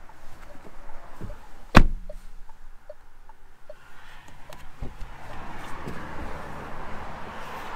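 A car's rear passenger door is pulled shut from inside with a single loud thud a little under two seconds in. From about four seconds a steady whirring noise builds as the electric rear window is worked.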